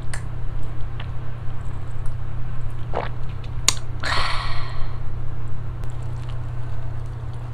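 Two sharp knocks as a small glass soju shot glass is set down on a wooden table, followed straight away by a breathy exhale after the shot, over a steady low hum.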